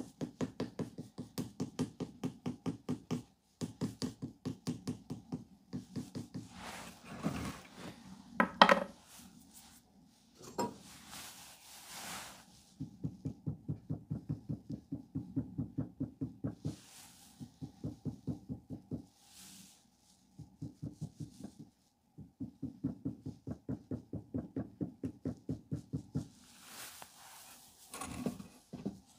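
Wet clay being beaten with a flat wooden paddle: runs of quick, even taps, about five or six a second, each run lasting a few seconds with short breaks. A single sharper knock comes about nine seconds in.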